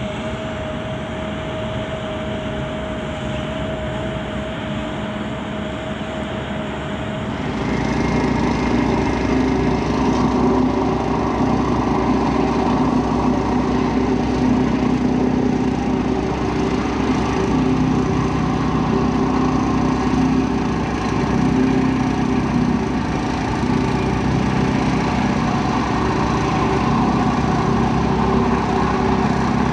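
For the first seven seconds or so there is a steady background hum of site noise with a thin steady whine. Then the diesel engine of a Hitachi wheeled excavator takes over, louder, running steadily at working revs.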